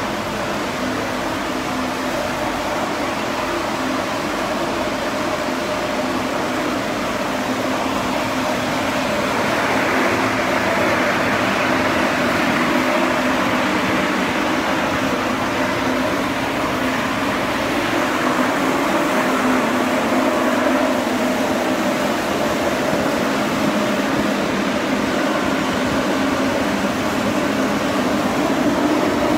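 Steady mechanical hum and whir of a chassis dyno bay: a cooling fan running with the Honda Civic's engine idling, growing slightly louder about ten seconds in.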